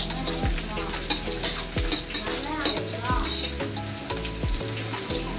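Sliced onion and ginger sizzling in hot oil in a wok, with irregular louder bursts as the pieces are stirred and tossed.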